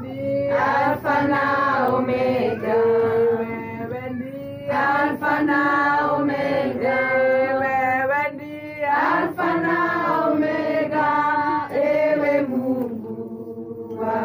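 Voices singing a song together, with long held notes in phrases a few seconds long.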